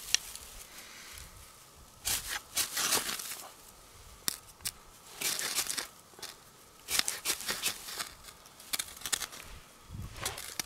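Ferro rod being struck with a scraper to throw sparks into grass tinder: several rasping scrapes in quick bursts, with a few sharp clicks between them.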